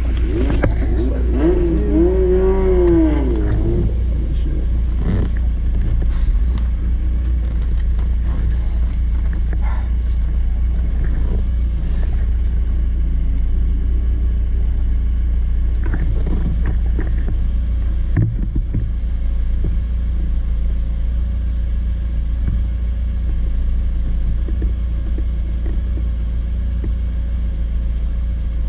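Porsche 944's four-cylinder engine running, heard from inside the car over a steady low drone. The revs rise and fall once about two seconds in, and there is a single knock about eighteen seconds in.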